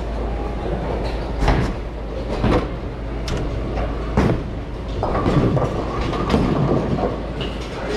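Bowling alley din: a steady rumble of balls rolling down the lanes, broken by four sharp knocks and clatters in the first half, from pins and balls striking.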